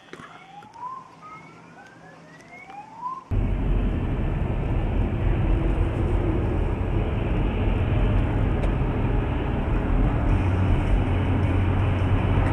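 Steady vehicle driving noise, engine and road noise, starting abruptly about three seconds in. Before it comes a quiet stretch with a few faint rising chirps.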